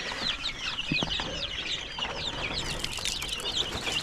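Many baby chicks peeping together: a continuous mass of high, overlapping chirps. There is a light knock about a second in.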